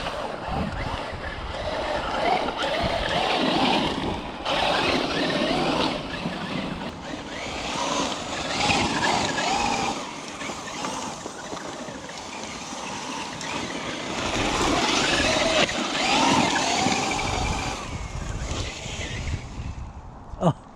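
Traxxas Unlimited Desert Racer RC truck driving hard: its electric motor whines, rising and falling in pitch with the throttle, over a steady rush of tyre noise. A sharp knock comes near the end.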